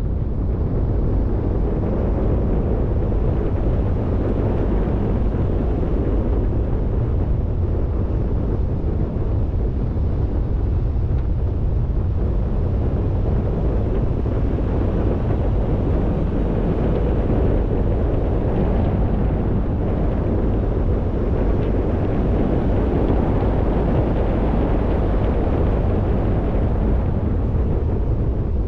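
A car driving steadily on a wet asphalt road: constant tyre and road noise over a deep, unbroken rumble.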